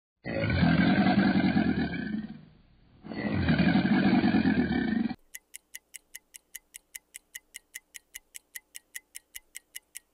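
Crocodile bellowing: two long, deep calls of about two seconds each, a short pause between them. Then a clock ticking, about four to five ticks a second.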